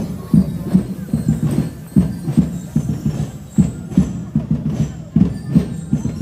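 Marching band drums beating a steady parade cadence, about two and a half beats a second.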